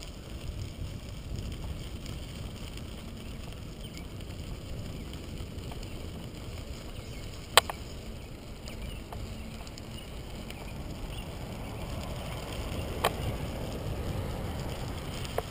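Bicycle rolling along a crushed-stone trail: a steady low rumble of tyres and air on the bike-mounted camera. Two sharp knocks cut through it, a loud one about halfway and a smaller one near the end.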